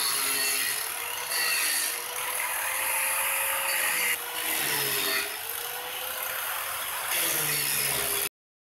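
Angle grinder with a Diablo carving wheel running and grinding into the edge of a counter blank, shaping a rock-face edge. Its motor whine sags each time the wheel bites in and recovers, over a loud hiss of material being ground away. The sound cuts off suddenly near the end.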